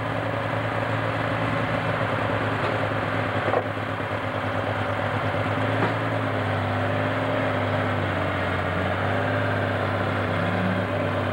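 John Deere Super Stock pulling tractor's alcohol-burning engine running at steady high revs under full load during a pull, a loud, even drone.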